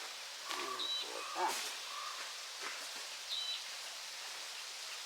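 A wild bird giving the same short, high call twice, about two and a half seconds apart, over steady outdoor background. A few fainter, lower wavering sounds come about a second in.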